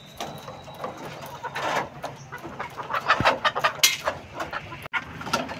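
A flock of white hens clucking in wire layer cages, with scattered short calls and sharp clicks.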